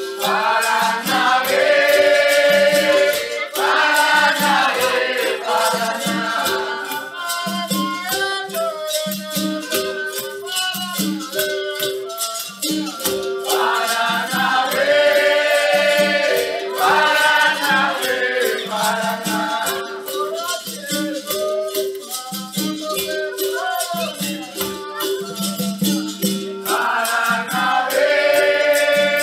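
Capoeira music: a steady repeating berimbau-and-rattle rhythm with group singing over it.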